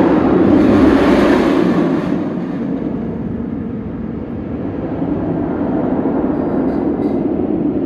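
A loud, steady rolling rumble with a hissing rush that swells over the first two seconds and then eases off.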